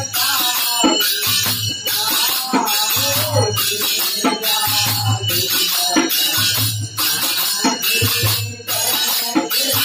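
Village men singing a devotional bhajan in kirtan style, accompanied by jingling metal hand percussion that keeps a steady beat.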